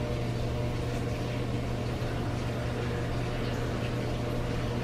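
A steady low hum, with a few faint light taps of a metal spoon against a glass bowl as soft baked potato is scooped out.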